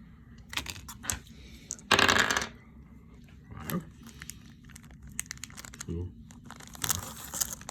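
Trading card packs being handled: cards clicking as they are flipped, with a loud crinkling rustle of a pack wrapper about two seconds in and another stretch of rustling near the end.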